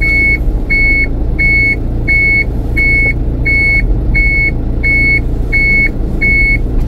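A dump truck's reversing alarm beeping steadily, about one and a half beeps a second on a single high tone, over the low rumble of its idling engine.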